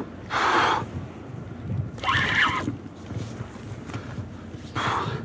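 Fishing reel being worked while playing a hooked kingfish: short bursts of reel and line noise every one to three seconds, over wind on the microphone.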